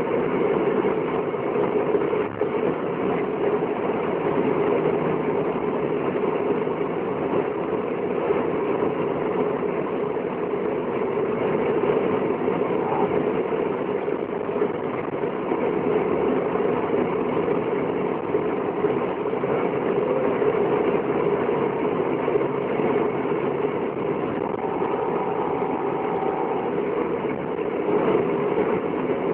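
Steady engine and road noise of a moving vehicle, heard from inside the cab while it drives along a road.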